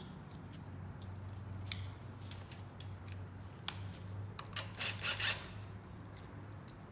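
Scattered light clicks and scrapes of hand tools and small parts being handled while bolting a portable generator back together, louder and closer together about five seconds in, over a steady low hum.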